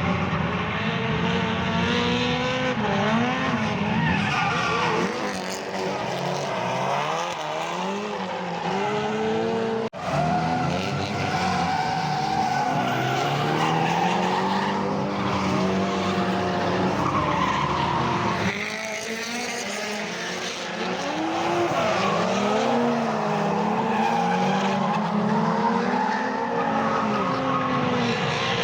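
Drift cars on track: engines revving up and down in repeated rising and falling sweeps, with tyres skidding.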